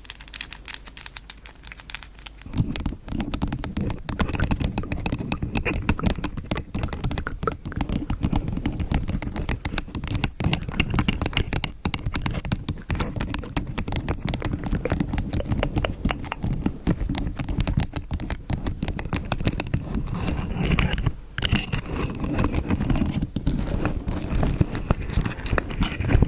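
Dense, crackly scratching and tapping close up on a microphone: ASMR hand sounds and mic triggers. From about two and a half seconds in, a heavier, deeper rubbing sound joins and runs on.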